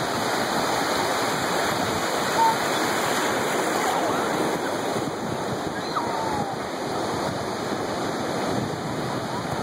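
Ocean surf: small waves breaking and washing through shallow water at the shoreline, a steady rushing hiss, with a few faint brief voices now and then.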